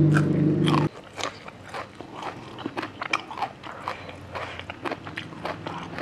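Close-miked mouth eating sounds: a run of many short, crisp crunches and wet chewing clicks from a mouthful of food and raw vegetables. It is preceded by a louder steady low hum that stops abruptly about a second in.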